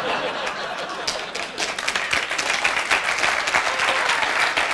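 Studio audience laughing and applauding after a joke, the clapping growing denser and a little louder about a second and a half in.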